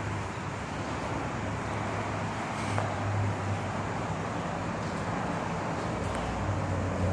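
1982 Honda CB900F Super Sport's air-cooled inline-four engine idling steadily through its mufflers. It gets a little louder near the end as the exhaust comes closer.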